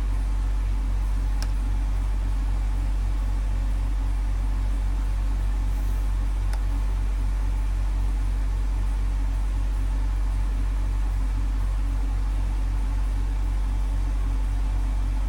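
Steady low electrical hum at mains frequency, with two faint clicks a second or so and about six seconds in.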